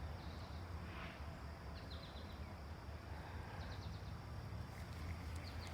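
Quiet outdoor ambience: a steady low rumble with a few faint, short, high bird chirps.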